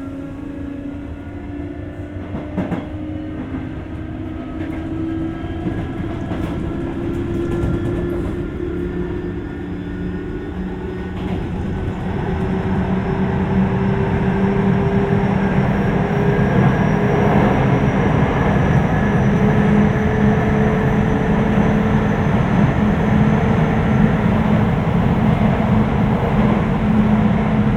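Sotetsu 8000 series electric train running, its Hitachi GTO-VVVF inverter and traction motors whining in several tones that climb steadily in pitch as the train accelerates. Wheel and rail rumble under it grows louder, with one brief knock about three seconds in.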